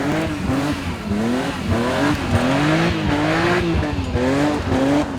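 Two BMW straight-six engines, from an E36 M3 and an E46 330ci drifting in tandem circles, revving up and down about once a second under throttle, with tyres squealing and scrubbing.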